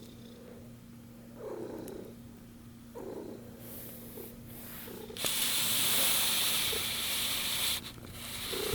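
One-week-old kitten purring softly, with a loud hissing noise lasting about two and a half seconds in the second half.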